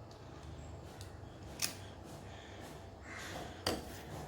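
Faint handling sounds of a spoon scooping sticky cookie dough, with two short sharp clicks about two seconds apart.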